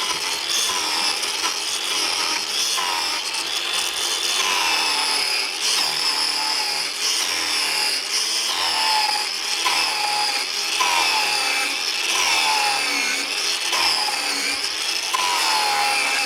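Angle grinder fitted with a chainsaw-chain carving disc cutting into wood: a high whine whose pitch repeatedly sags as the chain bites under load and climbs back as it eases off.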